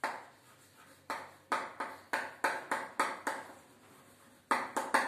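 Chalk clicking and tapping against a blackboard during writing: a quick run of short, sharp clicks, several a second, with a lull of about a second before a last few.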